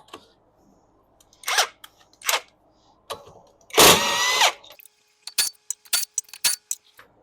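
Handheld power tool spinning the wheel's lug nuts off, in short bursts. The longest burst, about four seconds in, has a rising whine, and a string of quick clicks follows.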